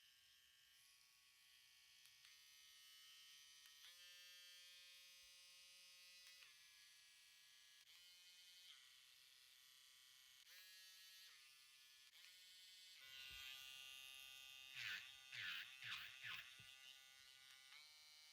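Faint whine of a Livingvelly cordless electric nail drill, its pitch stepping up and down several times as the speed changes. Near the end there are a few short, louder spells where the pitch dips and wavers as the motor is loaded.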